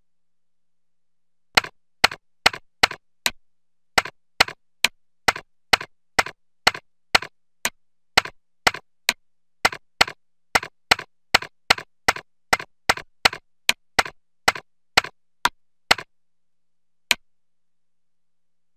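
Typing keystrokes, one sharp click per character, about two a second and very even. They stop near the end, and after a short pause comes one last click.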